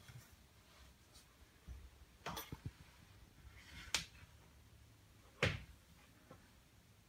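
A few sharp knocks and taps over quiet room tone: one about two seconds in, a louder one about four seconds in and the loudest about five and a half seconds in, the handling and movement noise of someone shifting about with a phone camera.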